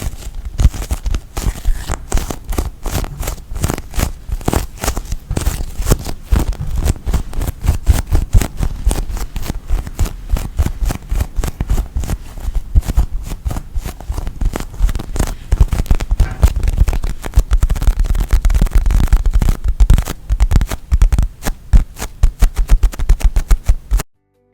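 Squishy bread-shaped squeeze toy being squeezed close to the microphones: dense crackling and squishing over soft low thumps, cutting off abruptly just before the end.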